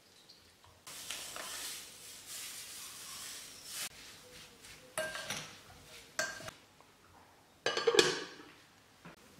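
Sugar pouring onto chopped strawberries in a glass bowl with a steady hiss for about three seconds, then a wooden spoon stirring them with a few scrapes and knocks against the glass. Near the end a glass plate is set down on the glass bowl with a loud clink.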